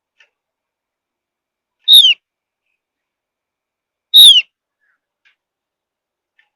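Javan grey-throated white-eye (Opior Jawa) giving two short, sharp, falling whistled calls about two seconds apart, with a few faint chirps between them.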